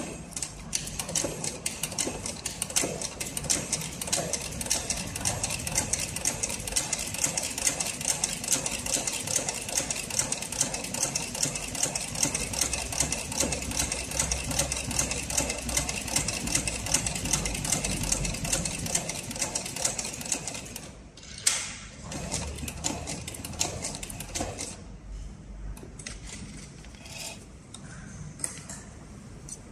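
Cowboy CB4500 heavy-duty cylinder-arm sewing machine stitching thick vegetable-tanned leather, its needle mechanism clacking in a fast, even rhythm. The stitching stops about two-thirds of the way in, followed by one sharp clack and then lighter, scattered clicks.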